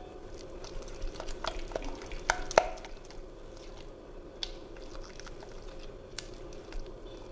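A silicone spatula stirring a thick yogurt-and-spice marinade in a glass bowl, with wet squishing and many small taps. The spatula clinks against the glass twice in quick succession, about two and a half seconds in, and the clinks ring briefly.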